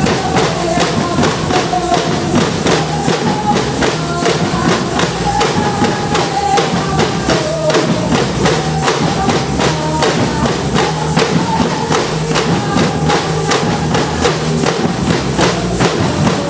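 Percussion band playing, with drums beating a steady, fast rhythm and a melody line carried over them.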